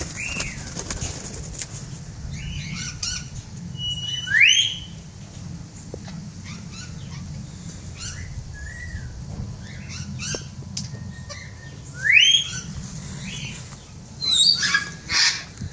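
Albino cockatiels calling: three loud rising whistled calls (near the start, about four seconds in, and about twelve seconds in) with softer chirps between, and a quick flurry of wing flapping near the end.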